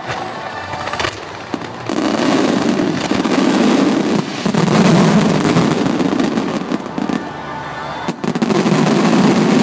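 Star mine fireworks barrage: aerial shells launching and bursting in a dense, unbroken run. It grows heavier about two seconds in and eases briefly near the end before surging again.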